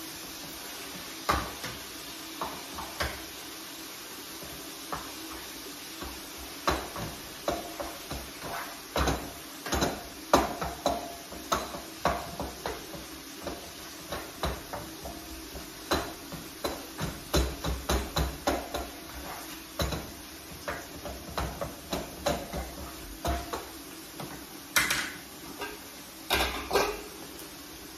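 A spatula knocks and scrapes irregularly against a frying pan as food is stirred on the stove. The strokes come thicker after the first few seconds, with a couple of louder metal clatters near the end as the pot on the next burner is handled, all over a steady faint hum.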